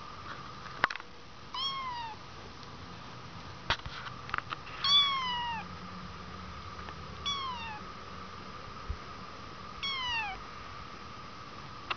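Kittens meowing: four short, high meows, each falling in pitch, a few seconds apart, the second the loudest. A few sharp clicks fall between them.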